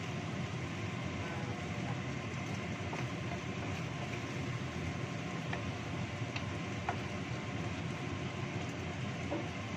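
Steady rushing noise of a wok cooking over a gas burner, with chicken feet simmering in sauce, and a few light knocks of a wooden spatula stirring against the wok.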